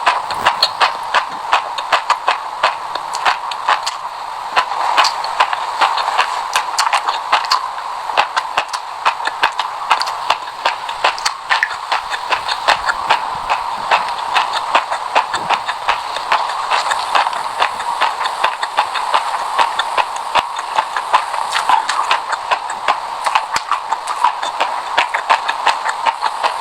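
A person chewing a mouthful of sesame seeds, a steady stream of quick, sharp crunches and crackles.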